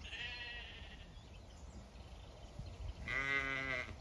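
Zwartbles ewes bleating: one call trails off at the very start, and a second, louder call comes about three seconds in and lasts nearly a second.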